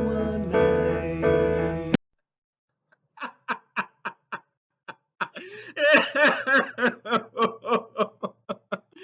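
Intro music that cuts off abruptly about two seconds in; after a second of silence, a person laughs in a long run of short, rapid bursts.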